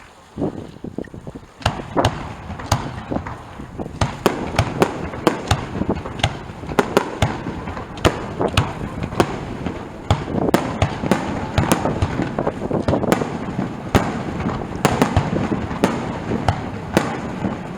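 Aerial fireworks bursting overhead. A few scattered bangs come first, then from about four seconds in a dense, rapid run of bangs and crackles over a continuous rumble.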